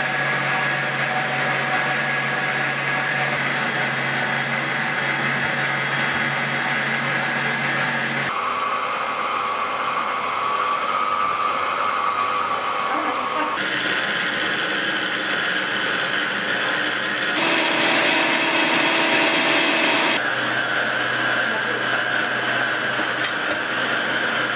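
Electric stand mixer's motor running steadily with its beater turning in the bowl, the hum changing in pitch and tone abruptly several times.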